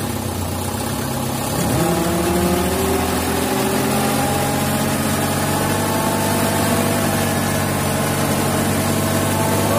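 Loaded dump truck's engine idling, then speeding up about two seconds in and holding a raised speed to drive the hydraulic hoist as the sand-laden bed tips up; a steady tone climbs slowly in pitch under the load.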